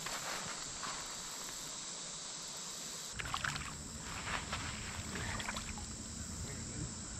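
Water splashing and sloshing close by, starting about three seconds in, with a few sharp knocks among it, over a steady background hiss.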